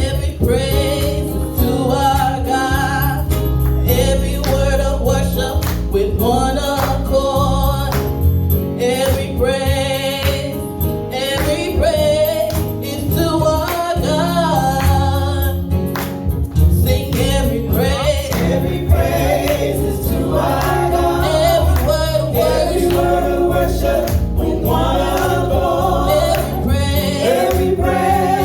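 Gospel choir singing over a band with bass, drums and keyboard.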